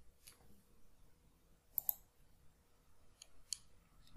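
A few faint clicks from a computer keyboard and mouse: a quick pair about two seconds in, then two lighter ticks near the end.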